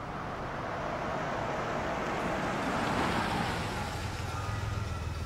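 A Subaru SUV rolling slowly over pavement: tyre noise with a low engine hum. The hum becomes steadier and stronger near the end as the car pulls up.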